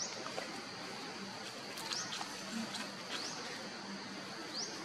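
Outdoor ambience: a short, high, rising chirp repeats four times, about every second and a half, over a steady high hiss.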